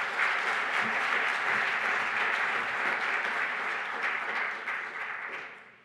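Audience applauding in a conference hall at the end of a talk, steady and fading near the end.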